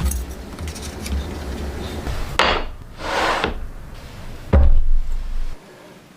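Wood and tools being handled on a workbench: a scraping slide of wood on wood partway through, then a sharp knock with a thump, the loudest sound, near the end.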